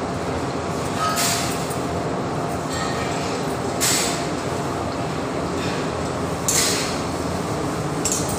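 Hot oil sizzling in an iron kadai as veg Manchurian balls deep-fry, over a steady low rumble. About every two and a half seconds the sizzle surges briefly, four times, as fresh balls go into the oil.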